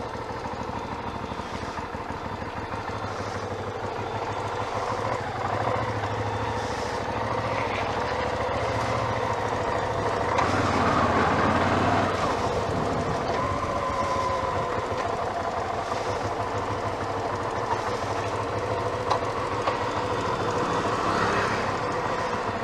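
Hyosung GT650R's V-twin engine running as the motorcycle is ridden slowly, with road noise; the engine swells louder for a couple of seconds about ten seconds in, then settles back.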